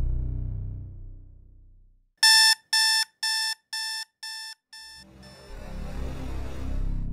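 Digital alarm clock beeping six times, about two short beeps a second, each fainter than the last. A low drone fades out before the beeps, and a steady noisy rumble rises after them.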